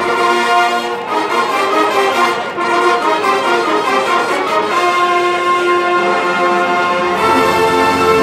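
Marching band brass section playing held chords, with low brass coming in near the end.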